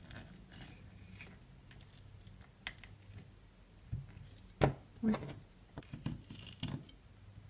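Kitchen knife cutting small pieces of red bell pepper on a plastic cutting board: scattered taps and clicks of the blade on the board, the loudest a little past halfway.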